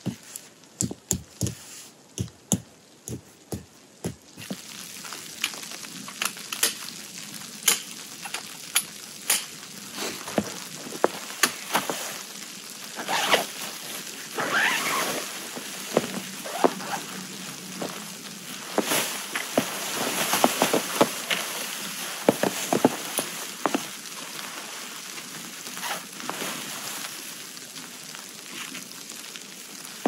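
A run of regular knocks, about two a second, for the first four seconds, then continuous crinkling and rustling of tent fabric with irregular sharp crackles as the hot tent is raised and pitched on snow.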